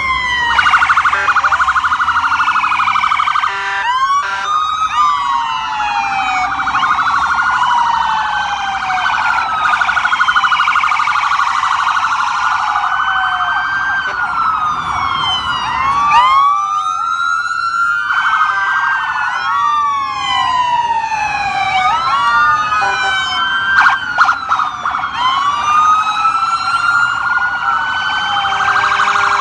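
Several police sirens sounding at once from a passing convoy, overlapping wails rising and falling, with a fast yelp under them.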